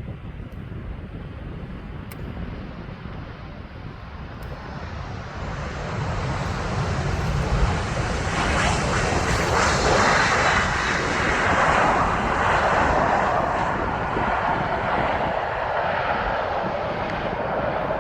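Jet airliner on landing approach flying past: its engine noise swells from about six seconds in, is loudest around ten seconds, then holds and eases slowly.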